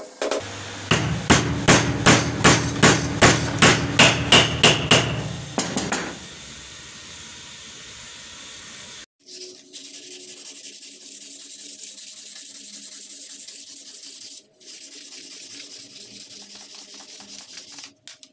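About ten sharp knocks, roughly two and a half a second, as the steel hammer head is driven down onto its new wooden handle. After a break, sandpaper is rubbed back and forth by hand on the hammer head, pausing briefly partway, with a faint steady hum underneath.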